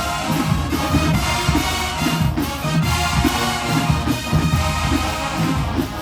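HBCU marching band of brass and drums playing a tune at full volume, with a steady pulsing bass beat under sustained horn chords.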